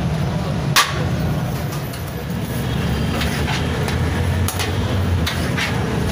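A metal serving spoon scraping and clinking against a large steel degh as rice is scooped out, over a steady low hum of street traffic. A single sharp knock comes about a second in.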